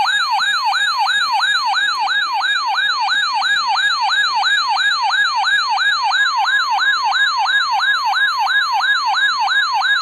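Weather alert radio's electronic siren alarm, sounding for a severe thunderstorm warning: a loud, fast, repeating rising whoop, about three and a half a second. A steady single-pitch alert tone joins about six seconds in.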